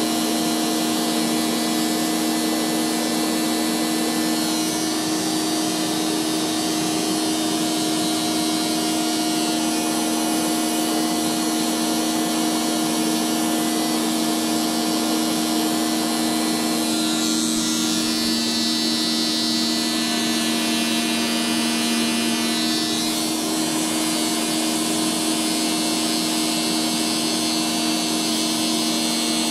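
Vacuum cleaner motor running with a Flowbee haircutting attachment on its hose: a steady hum with an airy rush. The high hiss shifts briefly about halfway through.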